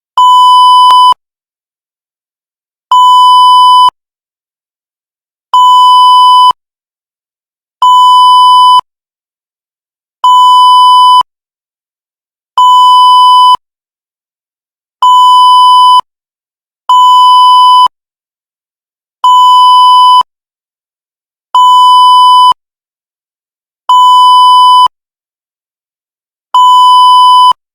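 Electronic beep tone sound effect: a steady beep at one fixed pitch, about a second long, repeated about a dozen times with roughly one to one and a half seconds of silence between beeps.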